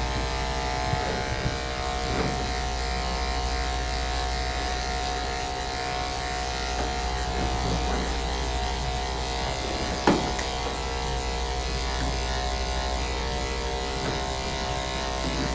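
Electric dog-grooming clippers running with a steady hum, with one short sharp click about ten seconds in.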